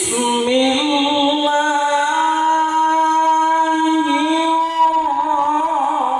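A male Qur'an reciter's voice through a handheld microphone, chanting melodically in tilawah style. He holds one long, steady note and then winds it through a wavering ornament about two-thirds of the way in.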